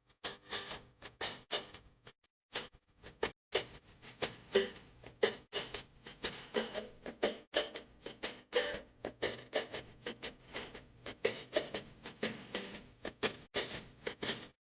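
Rapid, irregular clatter and scraping of a cooking utensil in a pan, several knocks a second with a brief metallic ring on some.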